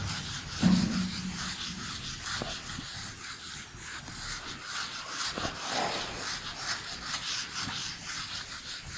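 Cloth duster rubbing across a whiteboard, wiping off marker writing in repeated scrubbing strokes, with a short low sound about a second in.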